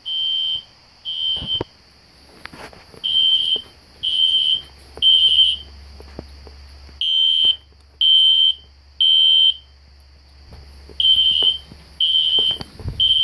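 System Sensor SpectrAlert Classic fire-alarm horn sounding the temporal-three evacuation pattern: high-pitched beeps of about half a second, three to a group about a second apart, with a short pause between groups. A faint steady high whine runs underneath.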